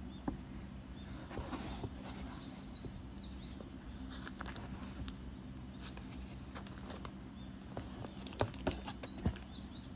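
Plastic display-book sleeves rustling and clicking as the pages are handled and turned, with a few sharper clicks near the end.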